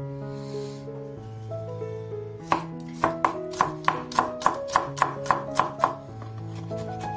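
Chef's knife slicing garlic cloves on a wooden cutting board: a quick run of about a dozen sharp knocks, about four a second, starting about two and a half seconds in and stopping near the end.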